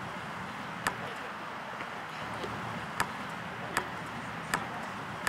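Basketball bouncing on an asphalt court: several sharp single bounces, irregularly spaced about a second apart, over a steady background hiss.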